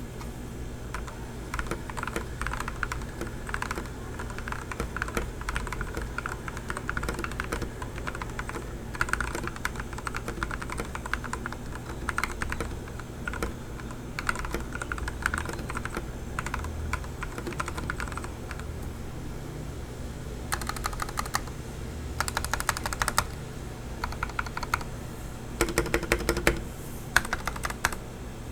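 Typing on a TM680 mechanical keyboard with lubed Gateron Yellow linear switches, Matcha KT1-profile keycaps, 5 mm case foam and taped stock stabilisers: a steady run of keystrokes. Quicker flurries of keys come about twenty seconds in and again near the end.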